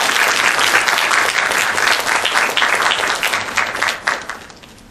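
Audience applauding in a hall, a dense patter of hand claps that dies away about four seconds in.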